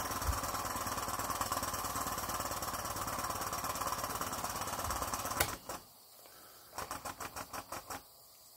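Graham Industries VR1A double-acting model steam engine running fast on live steam and driving a belted Baker fan, its exhaust beats coming as a rapid, even chatter. About five and a half seconds in it cuts off abruptly after a click, and near the end comes a short run of slower, separate beats as the boiler's steam runs low.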